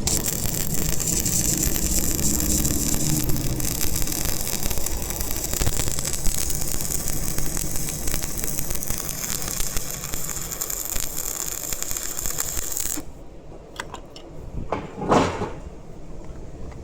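Electric arc welding: a steady crackling and sizzling of the arc that cuts off about thirteen seconds in, followed by a few light clicks and one short, louder sound.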